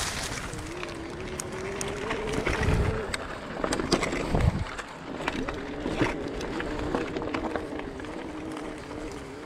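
Electric bike motor whining as the bike rides a dirt trail, its pitch rising as it speeds up, then fading and coming back steadier. Tyres crackle and rattle over the dirt, with a couple of low thumps from bumps.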